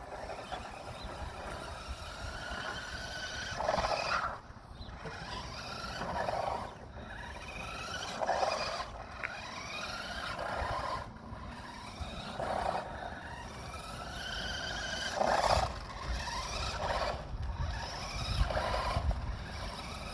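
Radio-controlled toy car's small electric motor whining, its pitch rising and falling as it speeds up and slows, with louder bursts every couple of seconds.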